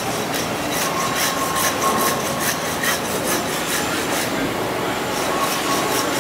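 A butcher's blade working on a beef carcass in quick rasping strokes, about three a second. The strokes fade about four seconds in and return weaker near the end.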